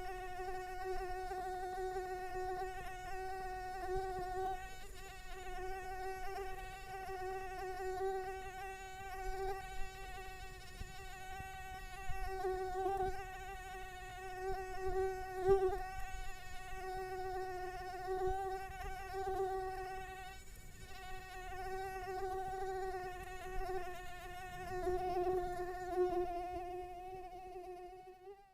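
Mosquito buzzing in flight: a continuous thin whine that wavers a little in pitch and swells and fades in loudness.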